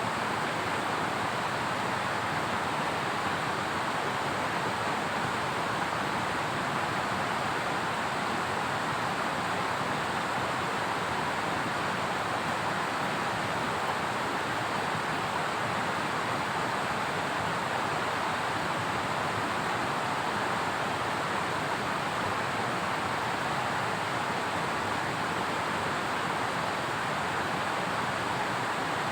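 Steady, even rush of water with no breaks or separate drops, the sound of a downpour and swollen running water in a forest.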